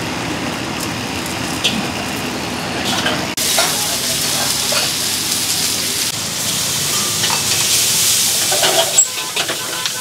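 Char kway teow stir-frying in a hot wok, sizzling, with a metal spatula scraping and clinking against the wok. The sizzle jumps suddenly louder a little over three seconds in.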